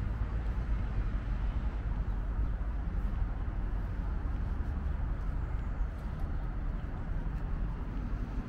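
Outdoor city ambience: a steady low rumble of distant road traffic.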